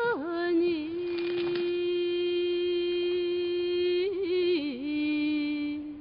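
A single voice singing one long, steady held note in a chant-like style. It has short wavering turns in pitch at the start and again about four seconds in, where it settles onto a slightly lower note.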